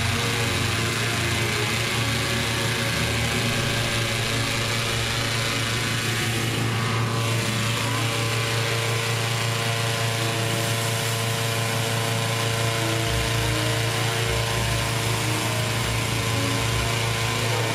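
Hot-air balloon propane burner firing continuously into the envelope during hot inflation, over a small petrol-engined inflator fan running steadily.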